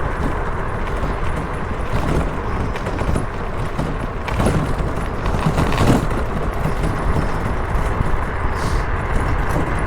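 Motorcycle on the move: a steady rushing noise, strongest in the low end, swelling louder for a moment around the middle.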